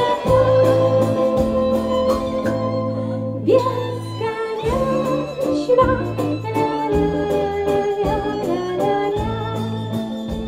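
Live band song: a woman sings long held notes into a microphone over a bass line and a steady beat of about four strokes a second. About three and a half seconds in, the vocal line breaks off with a short slide in pitch, then carries on.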